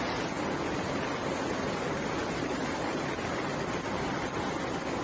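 Steady rush of water over a flooded street, an even hiss-and-rumble without breaks.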